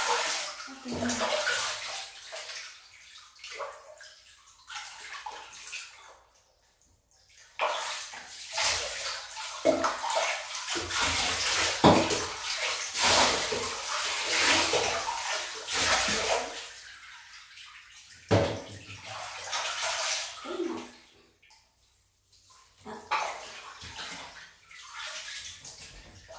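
Bathwater being poured from a plastic cup and splashed over a wet dog's coat in a bathtub, in irregular bursts with short pauses and a longer continuous run in the middle.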